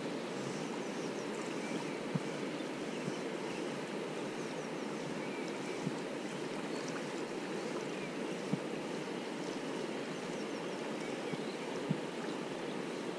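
A large river running high and fast, a steady rush of water, with a few sharp ticks about two, six, eight and a half and twelve seconds in.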